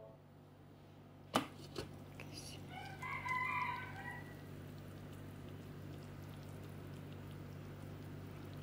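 Thermomix TM6 lid being unlocked and lifted off the bowl after sautéing, with a sharp click about a second and a half in, over a low steady hum. Around three seconds in, a short wavering call rises and falls.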